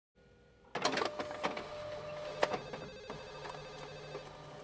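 Office background noise: a telephone ringing amid scattered clicks and a low machine hum, coming in sharply about a second in.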